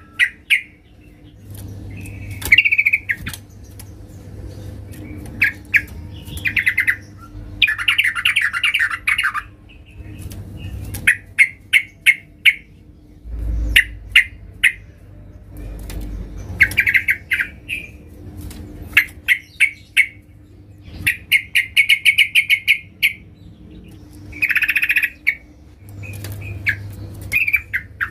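Female yellow-vented bulbul (trucukan) calling: bursts of rapid, rattling chatter alternate with short quick series of sharp notes. This is the female's call to males, used by keepers as a lure.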